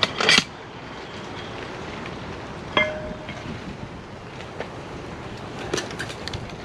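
Cast-iron camp oven lid lifted off with a quick metallic scrape and clatter, then a single metal clink that rings briefly about three seconds later. Small crackles from the campfire sound near the end.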